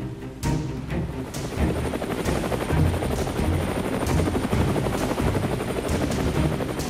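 Animated sound effect of several propeller drones flying together: a fast, steady rotor chop that starts about half a second in.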